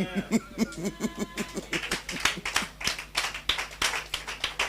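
Congregation clapping hands in irregular, scattered claps, with a few voices calling out in the first second or so.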